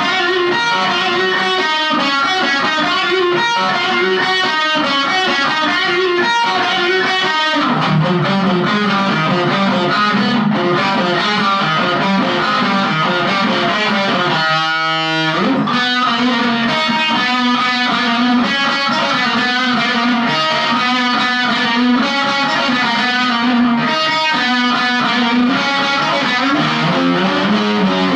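Distorted electric guitar, a Gibson Les Paul Studio played through a DigiTech Jackhammer JH-1 distortion pedal into a Marshall MG15CD amp, playing a busy riff of quick single notes and chords. About halfway through, one note is left to ring for about a second before the riffing resumes.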